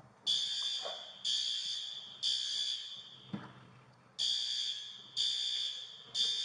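Building fire alarm horn sounding in the temporal-three evacuation pattern: three high, harsh tones about a second apart, a pause, then three more. The alarm was set off from a manual pull station. A single faint knock falls in the pause.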